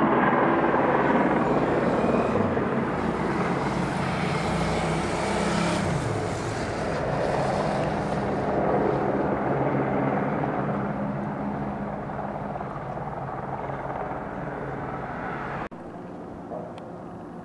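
Eurocopter AS350 Écureuil helicopter hovering close by, a loud steady turbine and rotor sound that dips briefly in pitch about six seconds in. It cuts off suddenly near the end.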